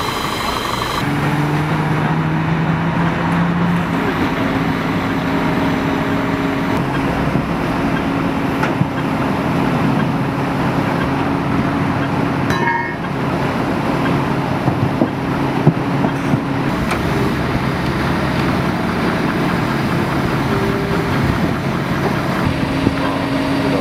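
Heavy diesel truck engines running, a steady low drone whose pitch steps up and down a few times, with a few sharp knocks about two-thirds of the way through.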